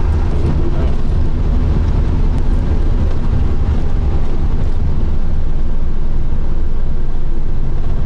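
Steady low engine rumble of a moving vehicle, heard from inside it.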